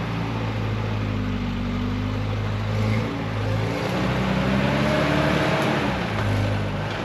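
Off-road 4x4's engine idling steadily, then revving up from about four seconds in and dropping back to idle about two seconds later, with a hiss of spinning tyres or churned ground during the rev.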